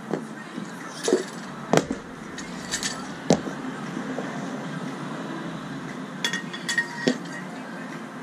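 Metal barbell clips and weight plates being handled: a series of sharp metal clinks and knocks, the loudest about two seconds in and a quick cluster between six and seven seconds, over steady background noise.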